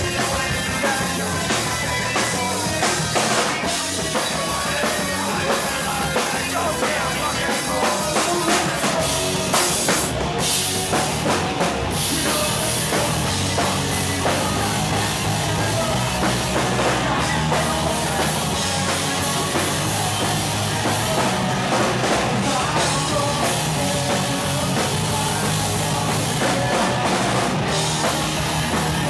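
Live rock band playing loudly: distorted electric guitars, bass and a driving drum kit, heard through a handheld camera's microphone close to the stage.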